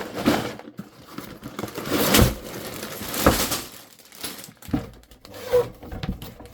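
A cardboard LEGO set box being torn open by hand, with irregular tearing, scraping and crinkling of cardboard and packaging, the loudest tears about two and three seconds in.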